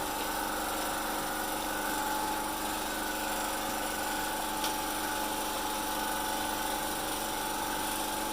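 A small engine running steadily, a constant drone with a high whine that does not change.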